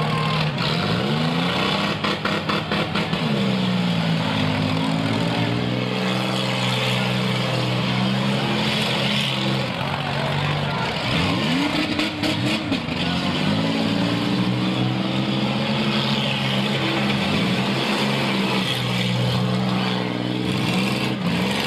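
Demolition derby cars' engines revving up and down over and over as they ram each other, with metal crash impacts about two seconds in and again around twelve seconds.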